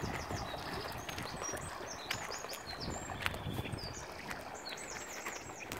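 Small birds singing: a run of short, high, quickly repeated chirping notes, over a low steady background noise. A couple of faint clicks come in the middle.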